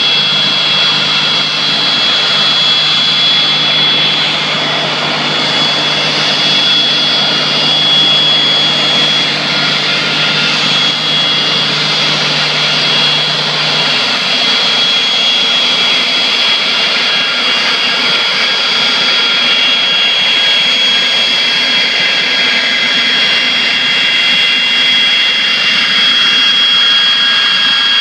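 Boeing 727-227's three rear-mounted Pratt & Whitney JT8D turbofans running at taxi power as the jet taxis up close: a steady high whine over a rushing jet noise.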